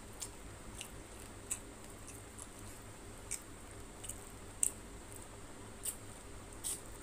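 Close-up eating sounds: scattered short, sharp wet clicks and smacks, about one a second, from chewing curry-soaked rice and fish eaten by hand, over a faint steady hum.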